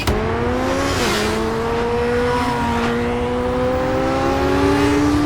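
Car engine running hard at speed. Its pitch dips briefly about a second in, then climbs slowly and steadily over road noise.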